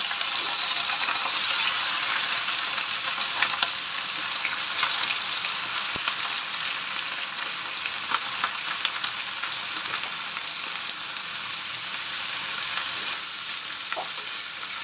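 Bok choy stir-frying in a hot pan: a steady sizzle as the leaves are turned with a wooden spatula, with scattered light knocks of the spatula against the pan. The sizzle eases a little toward the end.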